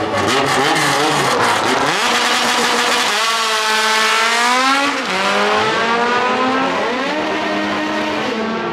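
Drag-racing cars launching from the start line. A rapid crackle comes first, then engines revving hard, rising in pitch with a drop at each gear change, then falling away near the end.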